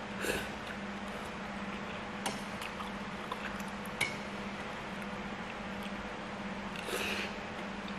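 Close-miked eating sounds of instant noodles: a slurp and chewing just after the start and again about seven seconds in. Chopsticks click against a stainless steel bowl twice, the second click about four seconds in ringing briefly. A steady low hum runs underneath.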